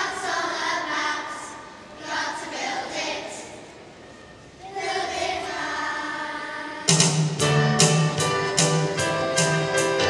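Children's choir with adult voices singing phrases of a song; about seven seconds in, the accompaniment comes in louder with a bass line and regular drum beats, about two and a half a second.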